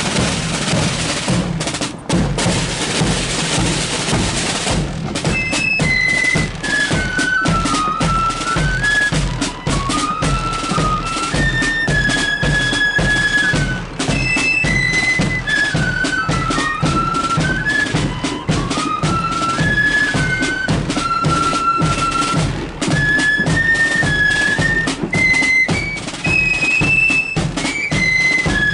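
Marching flute band playing. A snare drum roll leads for the first few seconds, then the flutes come in with a high melody over snare and bass drums.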